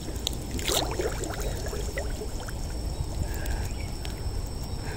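Shallow muddy water splashing and trickling as someone wades through it, with a few sharper small splashes in the first two seconds.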